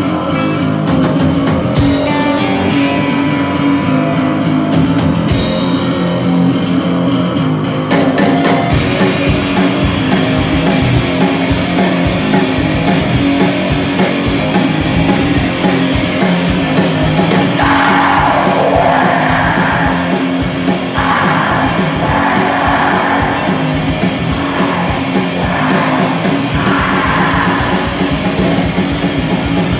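A rock band playing live: electric guitars over a drum kit, loud and steady, the sound filling out from about eight seconds in.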